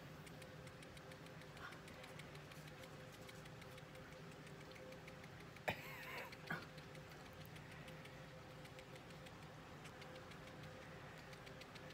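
Near silence: a faint steady hum with fast, faint ticking. About six seconds in there is a sharp click, a short soft squeak and a second click.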